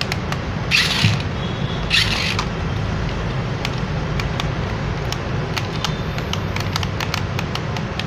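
Toy bounce car running: a steady electric-motor hum with many small clicks and knocks, and two short scraping bursts about one and two seconds in.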